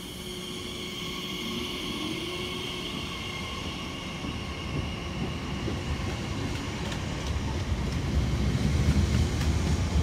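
Elizabeth line Class 345 electric train pulling out of the platform: a steady high whine from its traction equipment over a low rumble of wheels on rail that grows louder as the carriages pass.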